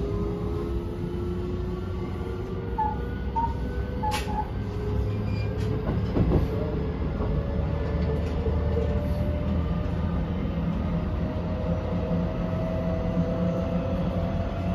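A JR West 223 series 2000-subseries EMU heard from inside its motor car as it accelerates. The Toshiba IGBT VVVF inverter and traction motors give a whine that rises steadily in pitch over the rumble of wheels on rail. A single sharp click comes about four seconds in.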